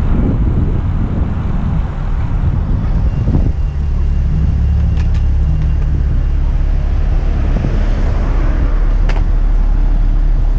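Road traffic noise among queued cars, a low rumble throughout. A steady low engine hum comes in about three and a half seconds in, and there are two sharp clicks.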